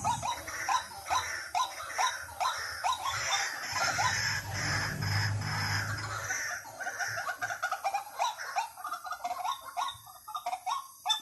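White-breasted waterhen calls, the kind used as a decoy call: a long run of short, hooked notes, about three a second, that thins out near the end.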